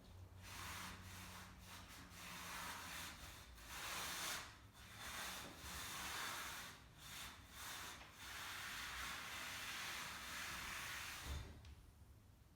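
A rag wiping along a garage door's metal rail in a series of uneven rubbing strokes, the last one long. It ends with a light knock near the end.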